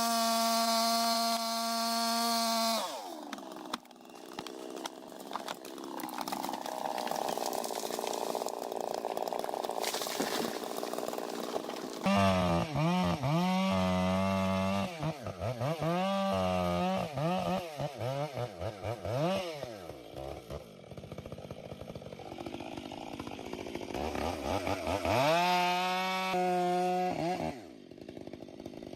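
Gas chainsaw running at high revs, its pitch sagging about three seconds in as it bites into wood and cuts with a rough, noisy sound. Later it is revved up and down again and again, the engine pitch rising and falling several times.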